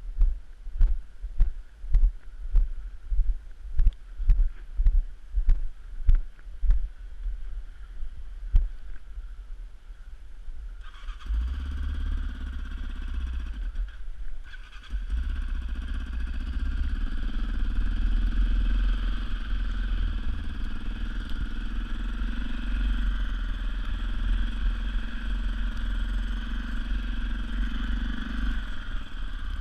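Regular low thumps, about two a second, for the first eight seconds or so. Then, about eleven seconds in, the Yamaha Raptor 700R ATV's single-cylinder engine starts, drops off briefly a few seconds later and runs steadily after that.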